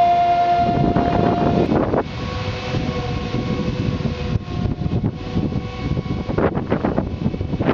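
Self-propelled yellow transport platform's drive running with a steady whine that fades out a little under two seconds in, leaving a low rumbling noise and fainter tones. Gusts of wind buffet the microphone in the second half.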